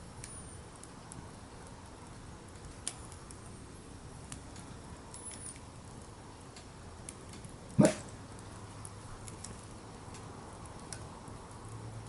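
A golden retriever barks once, sharply, about eight seconds in, over the faint, scattered crackle of a campfire.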